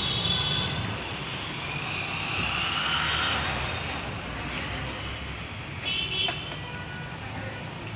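Street traffic noise, with a motor vehicle passing about two to three seconds in.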